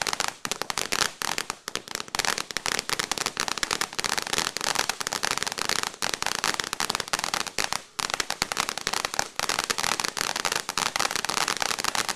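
Zip and Zing firework fountain burning, giving off a dense, rapid crackling and popping. It runs on with only brief dips.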